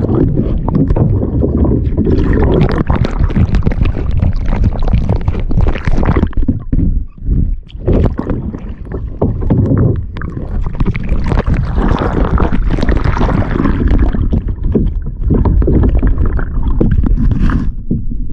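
Boat moving through the sea: loud, irregular rushing and splashing of water against the hull, with heavy low rumble.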